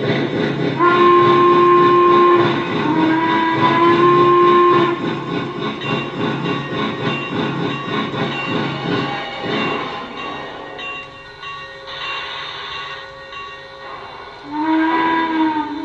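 Lionel Legacy Railsounds of a C&O 2-6-6-2 Mallet steam locomotive, played through the O-scale model's speaker: two long steam-whistle blasts over rhythmic exhaust chuffing. The chuffing fades out about ten seconds in, and a shorter whistle blast sounds near the end.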